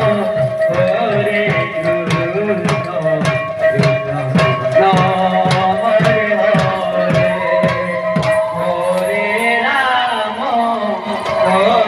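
Sankirtan devotional music: voices singing over a barrel drum, with a steady held tone and sharp strikes about three every two seconds.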